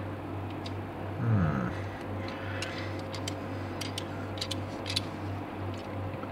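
Scattered light clicks and taps of a digital caliper being handled, its sliding jaw moved and set against a small die-cast car, over a steady low hum.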